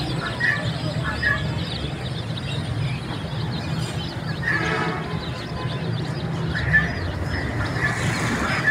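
A flock of chicks peeping continuously, many short high chirps overlapping, over a steady low hum.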